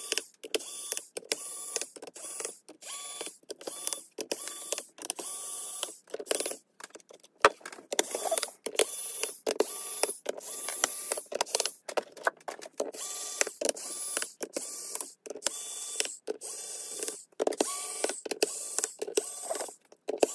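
Cordless electric screwdriver whirring in many short bursts, each under a second, stopping and starting as it backs screws out of a laptop's bottom case.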